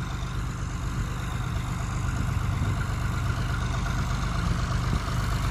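An engine idling steadily, growing slightly louder about two seconds in.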